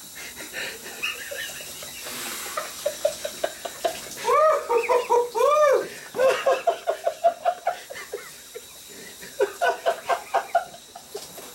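Stifled giggling held back in short, breathy bursts, several runs of quick pulses with a few louder rising-and-falling laughs in the middle, over the faint hiss of a running shower.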